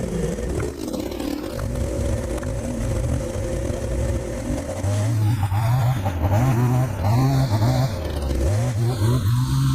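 Sunseeker MVT26i pole saw running, its motor pitch rising and falling as it is throttled.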